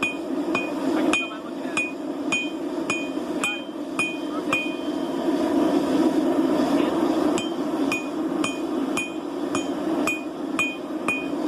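A blacksmith's hammer striking steel on an anvil at a steady rate of about two blows a second, each blow ringing. The strikes pause for about three seconds mid-way, then resume, over a steady rushing noise.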